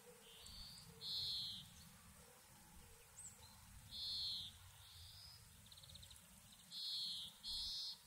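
Repeated short buzzy, trilled animal calls: four louder ones about half a second each, about a second in, at four seconds, and a quick pair near the end, with fainter ones between, over a low background rumble.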